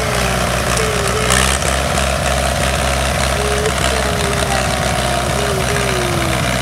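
John Deere 1010 tractor engine idling steadily, running again after a starter repair, with a brief knock about a second in.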